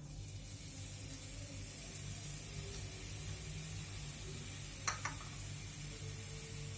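Finely chopped onion sizzling in hot oil in a pan, a steady hiss that starts as the onion goes in. One short knock about five seconds in.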